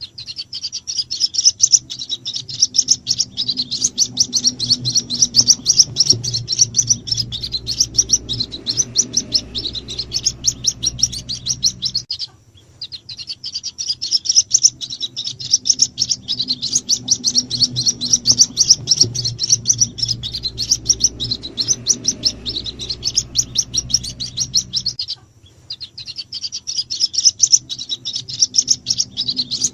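White-breasted waterhen chicks peeping rapidly and continuously in high chirps: a lure call meant to draw the parent birds in. The recording loops, breaking off for a moment about twelve seconds in and again near twenty-five seconds.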